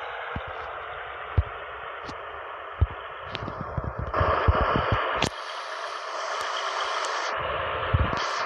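John Deere 8R tractor running: a steady rushing noise with irregular low thumps, easing off about five seconds in and building again near the end.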